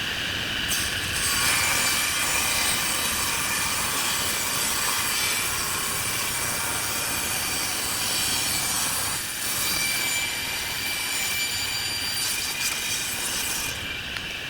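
Wood lathe running with a turning tool cutting the spinning wood: a steady scraping hiss with a high, squeal-like whine running through it.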